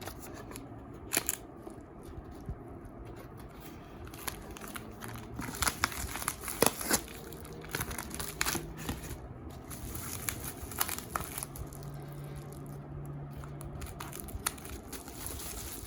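Parcel packaging being crinkled and torn open by hand, with rustling and many sharp crackles.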